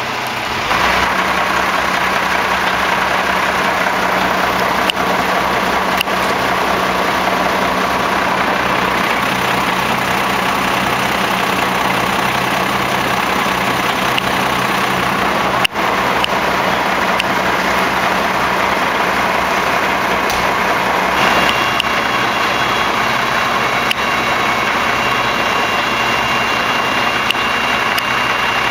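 Fire engine's diesel running steadily while it drives its rear-mounted fire pump to supply the laid-out hose lines. The sound grows louder about a second in, and a faint high whine joins about three-quarters of the way through.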